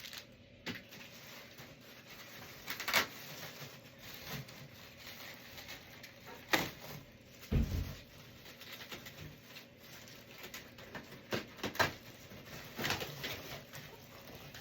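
Packaging being pulled off a new bass drum hoop: scattered rustles and short clicks, with one low thump about eight seconds in.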